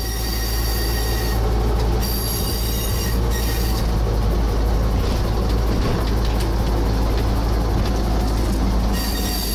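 TGK2 shunting diesel locomotive heard from inside its cab: the diesel engine runs with a steady low drone as the locomotive rolls along yard track.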